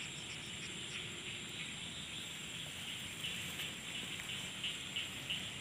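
Quiet outdoor ambience: a steady even hiss with a few faint, scattered chirps.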